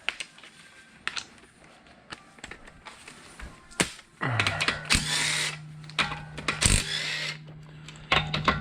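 A few light clicks and knocks of tools being handled, then about four seconds in a handheld power drill spins up and runs in short bursts, pausing and starting again near the end.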